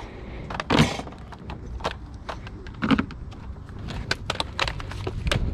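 Hard objects being handled and knocked together: a run of scattered clicks and clatter, with two heavier thuds about a second in and about three seconds in.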